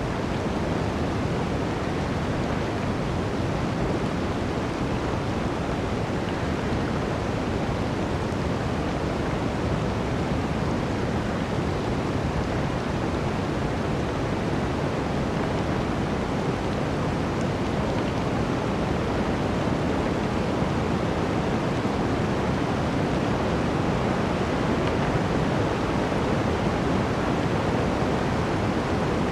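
Blizzard wind rushing steadily through a forest, a constant dense roar of noise with no gusts or breaks.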